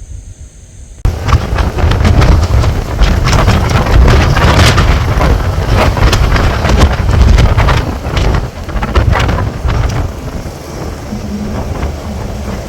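Faint insect chirring, then, about a second in, an abrupt switch to heavy wind rumble and buffeting on the microphone over a running vehicle. It eases near the end, leaving a steady low engine hum.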